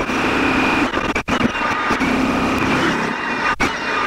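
Electric demolition hammer chiselling into bedrock, a loud continuous hammering that stops for an instant twice, about a second in and near the end.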